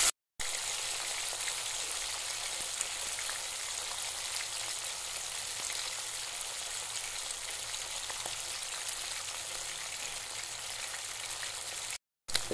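Bele (tank goby) fish shallow-frying in hot oil in a pan: a steady sizzle with faint crackles, cut by two brief silent gaps, one just after the start and one near the end.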